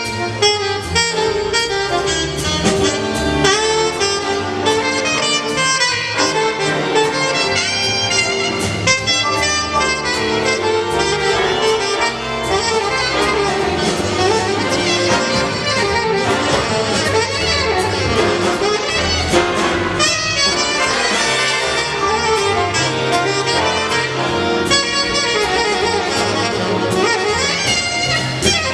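Live big band playing jazz, the saxophone and brass sections carrying the melody over a steady drum groove.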